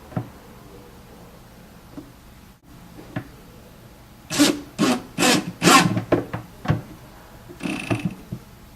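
A screw being driven by hand into a wooden cabinet face frame to fix a door hinge: a few light clicks, then about four loud rasping turns of the screw biting into the wood about halfway through, followed by small ticks and a short squeak.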